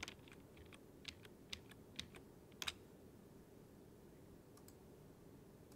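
Faint computer keyboard keystrokes: a handful of separate key clicks, most of them in the first three seconds, over low room hiss.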